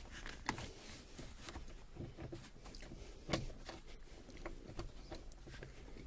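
Two 13mm spanners working a nut and bolt on a handbrake cable: irregular light metallic clicks and scrapes of the tools on the fastener. The sharpest clicks come about half a second in and again about three seconds in.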